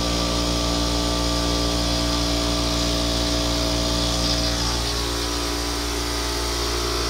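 Air compressor running steadily, a loud even motor hum, feeding air through the hose to inflate a car tire after a puncture repair.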